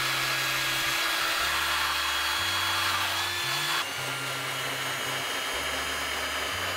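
A cordless drill spins a wire brush against rusty car-body steel, a steady whirr with a motor whine, scouring the rust off the bare metal. About four seconds in it becomes a little quieter and changes tone, as a smaller wire wheel takes over from the cup brush.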